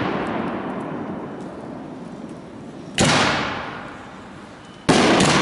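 Large aerial firework canister shells going off. There is a sharp bang about three seconds in and another near the end, with a second crack close behind it. Each trails off in a long rolling echo, and the fading echo of an earlier bang is heard at the start.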